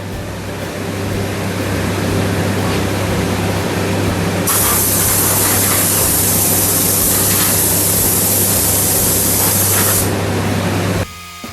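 Air spray gun spraying paint: a steady hiss that grows much stronger and brighter about four and a half seconds in and eases off about ten seconds in, over a steady low hum. The sound stops abruptly near the end.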